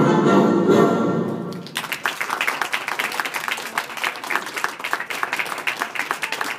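Music ends abruptly about a second and a half in, and an audience breaks into steady applause.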